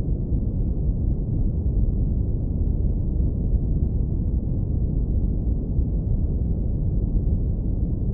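Steady, unchanging deep brown noise, filtered so that nearly all of it sits in the low bass: a warm, deep rumble.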